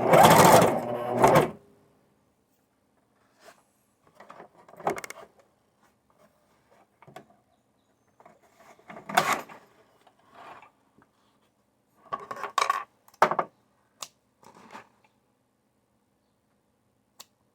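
A brief loud mechanical run with a low hum at the start, then scattered knocks, clacks and rustles of material and tools being handled at a sewing table.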